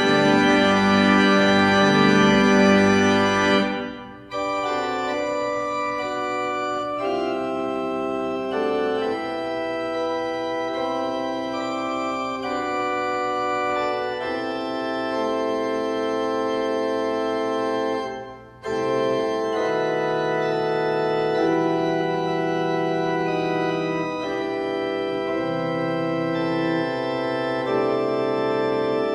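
Organ playing slow, sustained chords. A loud full chord cuts off about four seconds in, softer held chords follow, and after a short break near the middle, lower notes come in under the chords.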